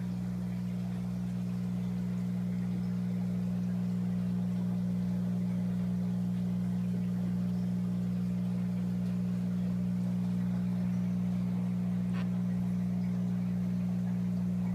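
Aquarium pump humming steadily at a low pitch.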